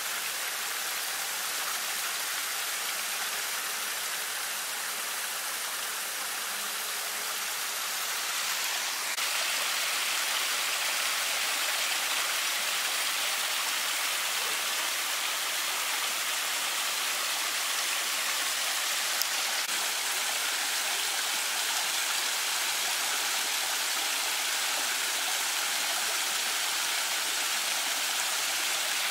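Steady rush of splashing water from a small waterfall pouring over rocks into a pond. It grows a little louder and brighter about nine seconds in.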